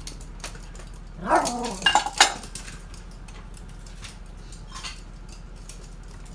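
A toy poodle barks once, about a second in, quickly followed by a few sharp, loud clicks and a light clatter, with scattered faint clicks of play continuing afterwards.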